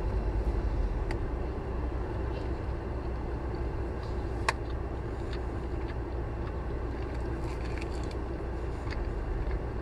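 Steady low rumble inside a car cabin, with faint scattered clicks from eating a barbecued rib and one sharp click about four and a half seconds in.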